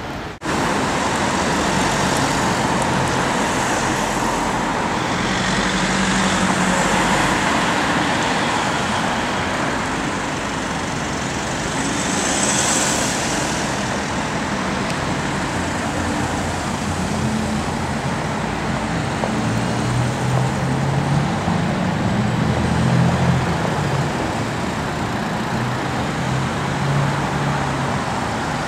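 City street traffic noise: a steady wash of passing cars and other vehicles, with a deeper engine note from a nearby vehicle in the second half.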